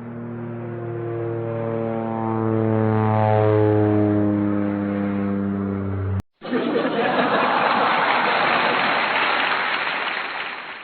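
Sound effect of an aircraft engine drone passing by: a droning tone that fades in, swells, and slowly falls in pitch for about six seconds before cutting off suddenly. After a brief gap comes a steady rushing noise for about four seconds.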